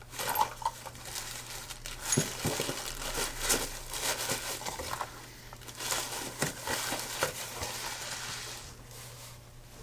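A bag of lathe cutting tools and boring bars being crinkled and rummaged through, with many small clicks and clinks of the tools, for about eight and a half seconds before it quietens.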